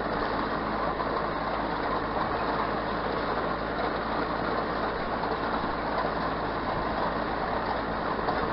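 John Deere 4600 compact utility tractor's diesel engine running steadily at a low, even throttle of about 1500 RPM while pulling a hay rake.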